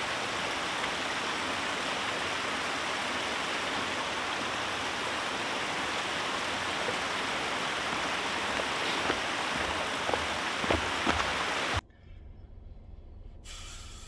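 Steady, even rushing noise of running water, with a few faint footsteps on the trail about nine to eleven seconds in. It cuts off sharply near the end, leaving a much quieter low hum.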